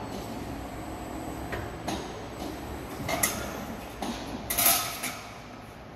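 ERBEND MFAS 3230 CNC servo folder working a fold, with mechanical clicks and clunks, then a long strip of thin sheet metal rattling and scraping as it is pulled out of the machine, loudest about four and a half seconds in.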